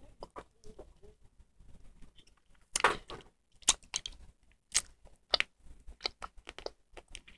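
Scattered short wet mouth clicks and lip smacks close to the microphone, from a girl biting and working at her lip, with a few louder smacks in the middle.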